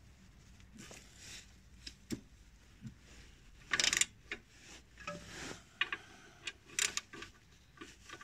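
Hand ratchet wrench breaking loose the driveshaft's inner CV joint flange bolts: a run of metallic clicks and knocks, with one louder clatter about four seconds in.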